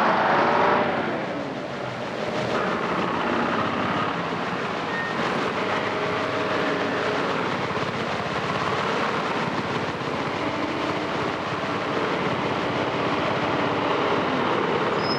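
Street traffic. A lorry's engine pulls away with a rising note in the first second, followed by a steady mix of vehicle engines and road noise.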